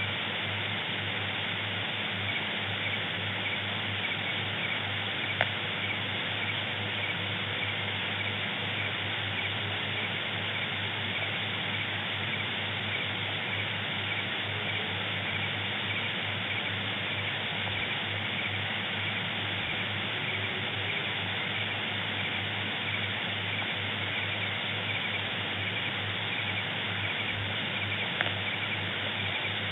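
Night ambience at a bush waterhole: a steady hiss with a low hum from the camera's microphone, under faint, rapidly repeating chirping. Two sharp clicks, about five seconds in and near the end.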